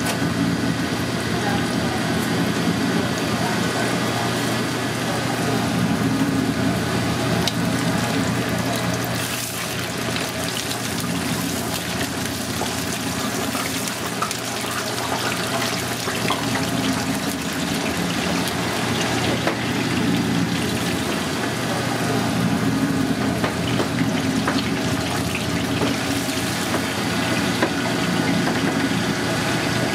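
Hot oil in a commercial deep fryer sizzling steadily around breaded cutlets as they fry, a continuous bubbling hiss with fine crackle. A steady low hum of kitchen machinery runs underneath.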